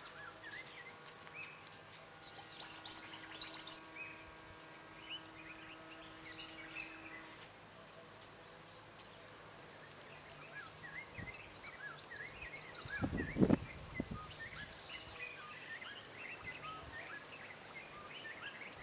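White-browed robin-chat and other birds calling: many short rising chirps throughout, with bursts of rapid high trills a few times. A low steady hum runs through the first seven seconds or so, and a low thump about two-thirds of the way through is the loudest sound.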